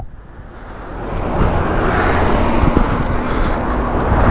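Steady rush of street traffic noise mixed with wind rumble on the microphone, building up over the first second or so.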